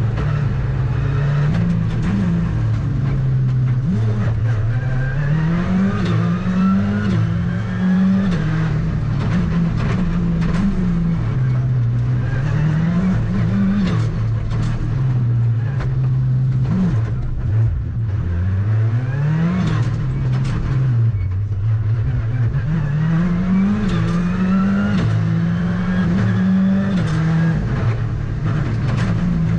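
Ford Fiesta R5 rally car's turbocharged four-cylinder engine at full stage pace, heard from inside the cockpit. The revs climb and drop over and over as it goes through the gears and brakes for corners, with brief knocks from the car now and then.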